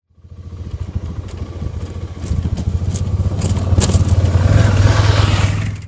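Adventure motorcycle engine running as the bike rides toward the listener over a loose gravel dirt track, growing steadily louder as it approaches. Scattered crunches and pops of stones under the tyres run over it.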